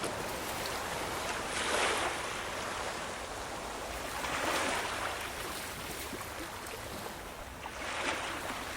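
Ocean waves breaking and washing on a shore, a steady surf hiss with three swells of louder wash a few seconds apart.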